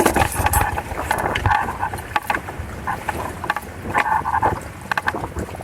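Water splashing and slapping against the hulls of a Hobie Cat 16 sailing catamaran, in irregular bursts, with wind buffeting the microphone.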